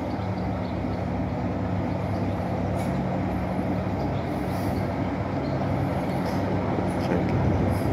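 Class 26 diesel locomotive D5314's Sulzer six-cylinder engine running steadily as the locomotive moves slowly toward the listener to couple up to its coaches, growing a little louder near the end.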